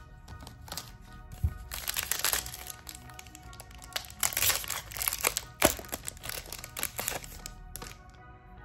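Glossy plastic wrapper of a trading-card booster pack crinkling as it is torn open by hand, in a string of bursts, over background music.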